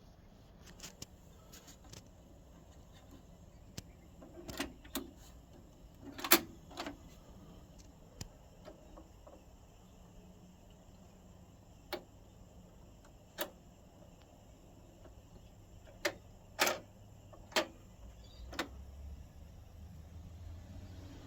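Philips fully automatic turntable's start-stop mechanism clicking and clunking as the tonearm and changer cycle, a string of sharp knocks at irregular intervals, the loudest about six seconds in, over a faint steady hum.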